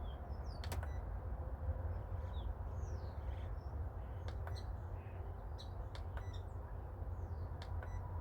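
Small birds chirping with short, quick calls over a low steady rumble, with several sharp clicks scattered through, a few of them close together.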